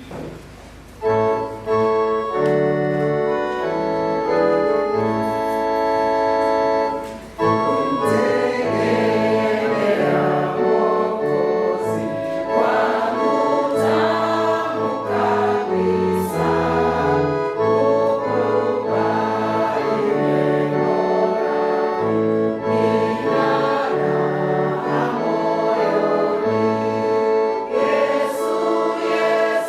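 A hymn begins: sustained organ-like keyboard chords over a stepping bass line start about a second in, and voices singing together join about seven seconds in.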